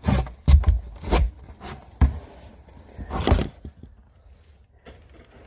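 Knocks and rubbing scrapes on wood as someone moves about in an attic: about six dull thumps in the first three seconds, then quieter.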